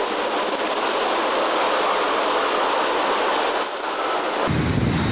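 Freight train of autorack cars rolling past: a steady noise of wheels and cars on the rails. About four and a half seconds in it cuts abruptly to a deeper, fuller rolling sound.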